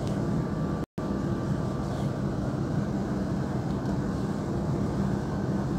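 Steady low hum and hiss of room background noise, with a brief cut-out in the audio about a second in.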